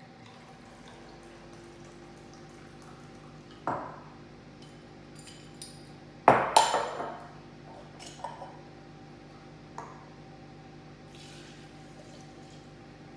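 Glass measuring cup and glassware handled on a counter while coffee extract is measured out: a knock a few seconds in, a louder clatter with ringing just past the middle, then a few light clinks, over a steady low hum.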